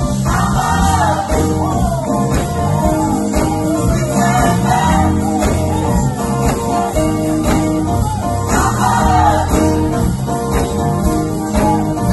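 Gospel choir singing with band accompaniment, guitar and bass under the voices, over a steady beat.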